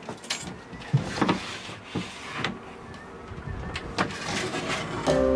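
A sailboat's sliding companionway hatch is pushed open and the drop board lifted out: a run of knocks and sliding scrapes. Background music comes in near the end.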